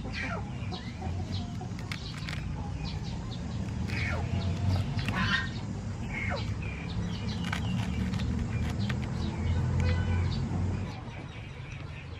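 Birds chirping, with short falling calls scattered throughout, over a steady low rumble that drops away about eleven seconds in.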